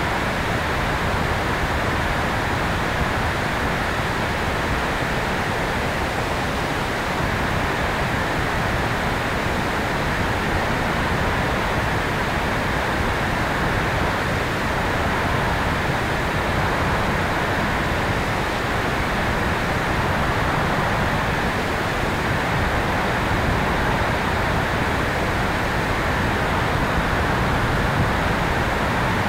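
Steady rush of wind over the microphone of a tail-mounted camera on a radio-controlled electric airplane in flight, an even hiss with no clear motor whine.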